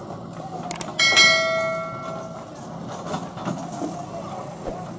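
A sharp metallic clang about a second in, ringing on for a second or so, as the JCB 3DX backhoe's steel bucket knocks against the tractor trolley while tipping soil into it. A few lighter knocks come before and after it, over the steady running of diesel engines.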